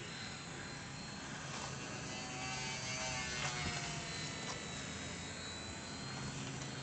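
Parkzone T-28 Ultra Micro RC plane's small electric motor and propeller buzzing as it flies overhead, with a faint whine that drops in pitch around the middle.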